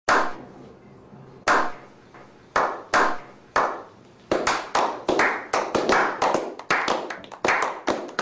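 A slow clap: single hand claps spaced a second or more apart, then more hands join in about halfway through and the clapping quickens into steady applause from a small group.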